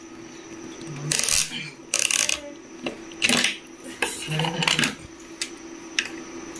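Steel pliers and a screwdriver clinking and scraping against a small threaded metal part of a buttonhole machine's knife assembly as it is worked open, in four or five short bursts with sharp clicks, about a second apart. A steady faint hum runs underneath.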